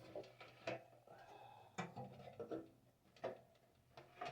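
Faint, scattered knocks and clicks, about five, with a brief squeak a little over a second in: handling noise from a vintage TV cabinet and its picture tube being worked loose by hand.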